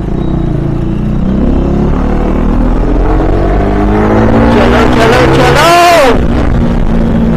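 KTM RC 390's single-cylinder engine pulling as the motorcycle accelerates, its pitch climbing steadily for several seconds, heard through a helmet-mounted microphone with a heavy low rumble. About five and a half seconds in, a loud, brief sound swoops up and back down in pitch.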